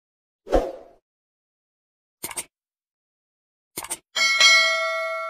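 Sound effects of a YouTube subscribe-button animation. A short thump comes first, then two quick clicks a couple of seconds in and three more near the end. These are followed by a notification-bell ding that rings on and slowly fades.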